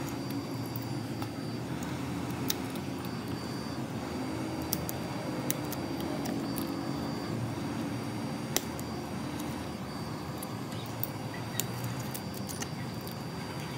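Hot-air heat gun blowing steadily while a metal scraper chips broken iPhone 11 back glass away from its adhesive, with a sharp click or tick of glass cracking or snapping off every second or so.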